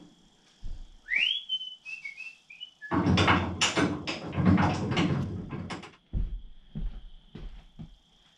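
A short whistle about a second in: one rising note, then a few brief notes. Then a louder stretch of clattering and handling noise, and a run of light knocks and clicks near the end.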